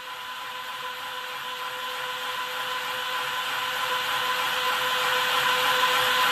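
A steady rushing hiss with a held tone underneath, swelling louder throughout: the noise tail closing a thrash metal track.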